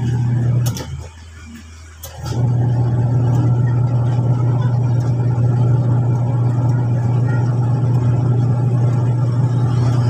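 Cleanmatic washing machine motor running with a steady hum, turning the wash pulsator through a newly fitted drive belt. About a second in it stops with a click and falls quiet, then clicks and starts again a little over two seconds in, running steadily from there.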